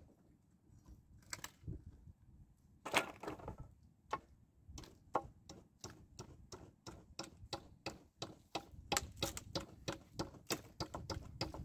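Hammer striking nails in an old wooden pallet board: a few scattered knocks, then a quick run of light strikes, about three a second.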